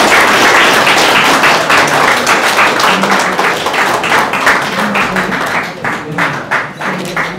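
Audience applauding: dense clapping that thins out into scattered separate claps and fades over the last couple of seconds.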